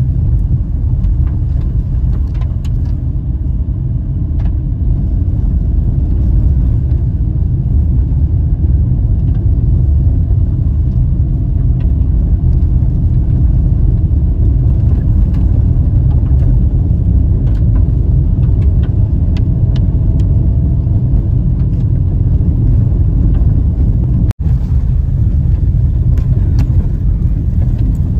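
Steady low rumble of a car driving on a gravel road, heard from inside the cabin, with scattered light ticks over it. The sound cuts out for an instant about 24 seconds in.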